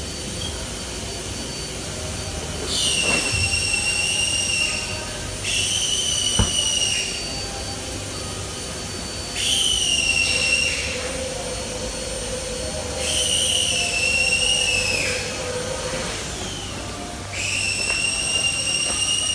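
A high whistling whine comes five times, each lasting about two seconds and settling slightly in pitch as it starts, over a steady low hum.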